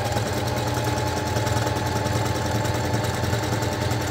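Electric sewing machine running steadily at speed, its needle going in a fast, even rhythm while it sews a wide, very short zigzag stitch.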